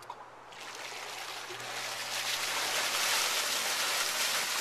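A jet of water gushing up out of a tub and splashing back down. It starts about half a second in and builds over the next couple of seconds to a steady rush.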